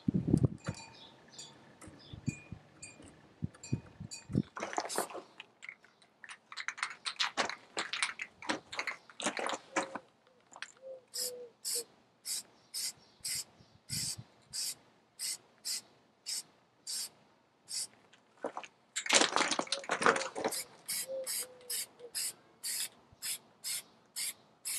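Metal bass-casting sinkers clinking and ringing against each other on a wire hanger. Then an aerosol can of fluorescent orange spray paint hisses in a few longer sprays, followed by a run of short, even spray bursts about two a second.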